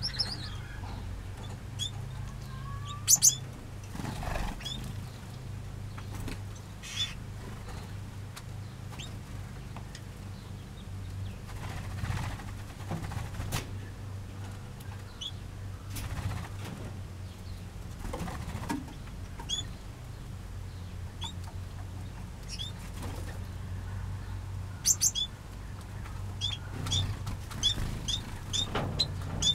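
Small aviary finches giving short, high chirps, with wings fluttering several times as birds fly about. A steady low hum lies underneath.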